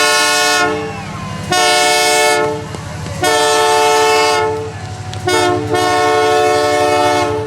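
A Canadian Pacific locomotive's multi-note air horn sounding repeated blasts: one ends just under a second in, then three more follow, the last the longest. A low rumble of the rolling train runs underneath.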